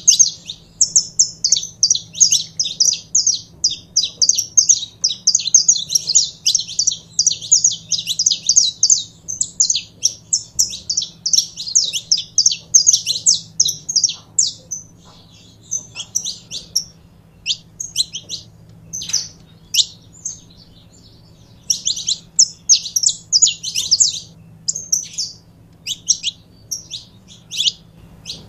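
Saffron finch singing: a long, fast run of high chirping notes for the first dozen or so seconds, then shorter, broken phrases with pauses between them.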